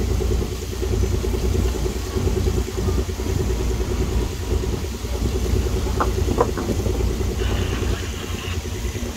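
Shore crane's engine running steadily under load as it hoists a rescue boat, a continuous low hum with a regular pulse. Two brief clinks come about six seconds in.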